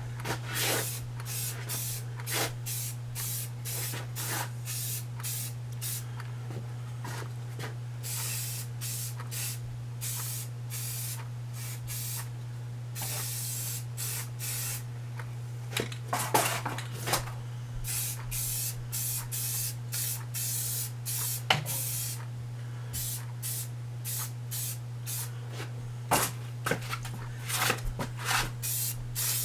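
Aerosol spray paint can spraying in many short hissing bursts, with a few longer sprays of a second or more, over a steady low hum.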